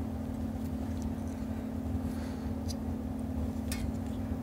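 A steady low electrical hum with a few faint, light clicks of small parts being handled.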